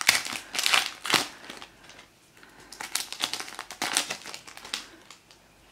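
Foil booster-pack wrapper crinkling as it is torn open and handled, in bursts: loudest in the first second and a half, then again around three to four seconds in.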